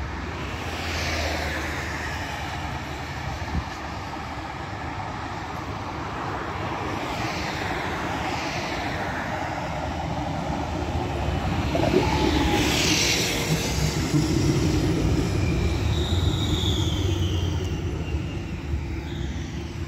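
A city tram running with a steady low rumble, overlaid by high whines that slide down in pitch several times; it gets louder about twelve seconds in.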